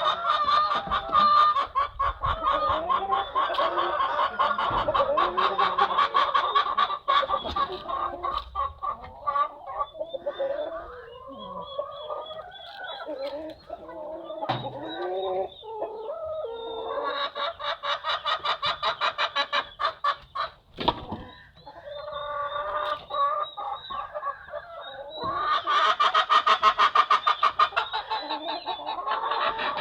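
A flock of laying hens clucking continuously in a dense, rapid chorus that eases off for a while in the middle and swells again near the end. A single sharp knock comes about two-thirds of the way through.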